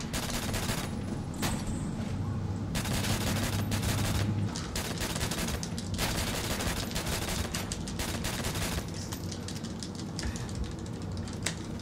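Video game gunfire: rapid, near-continuous bursts of shots, like machine-gun fire, from a shooter game being played.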